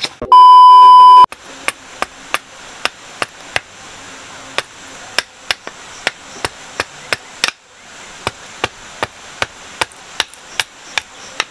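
A loud steady test-tone beep for about a second at the start, then a hand tool striking a wooden stick over and over: sharp knocks about two to three a second, with a brief pause a little past halfway.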